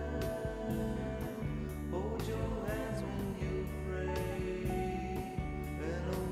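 Background music with a steady beat, about two beats a second, and held tones with occasional sliding notes.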